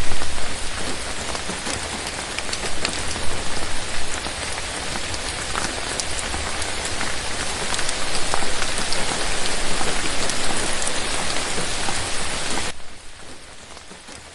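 Steady rain falling on a surface, a dense hiss with individual drops ticking through it. Near the end it drops suddenly to a much quieter level.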